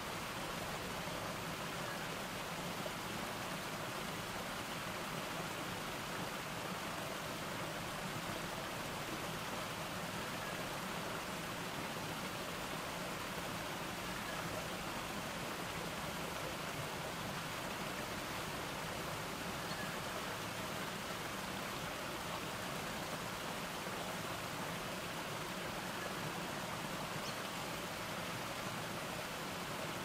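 A small stepped garden cascade, with water tumbling over rock ledges and splashing down a rocky stream bed in a steady, unchanging rush.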